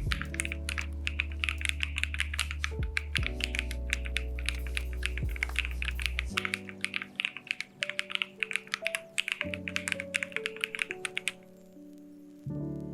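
Fast typing on an AKKO MonsGeek M1W aluminium-case mechanical keyboard: a dense stream of key clacks that stops about eleven seconds in, over background music.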